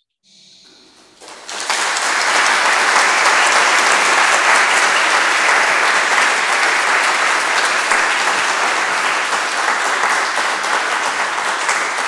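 Audience applauding. The clapping starts about a second and a half in and then holds steady.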